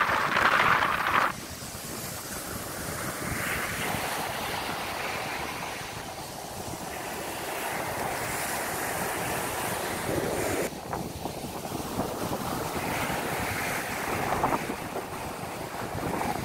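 Small waves washing onto a sandy beach, with wind rumbling on the microphone. A louder rush of wind in the first second stops abruptly.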